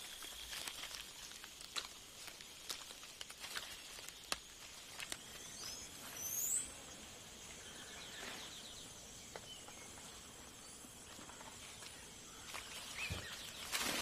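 Quiet rainforest ambience: a steady high insect drone with scattered faint ticks and rustles. A couple of short, high rising calls come about six seconds in.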